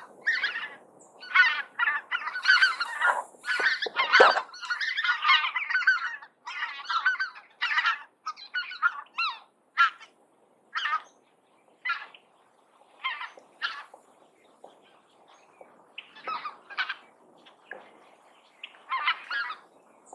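A flock of greater white-fronted geese calling. For the first several seconds the calls overlap thickly; after that they come singly, about one a second, and thin out toward the end.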